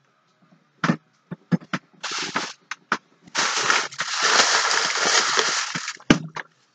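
Wrapping on a packed item crinkling and crackling as it is pulled open by hand: a few sharp crackles, then a steady crumpling for about three seconds from halfway in.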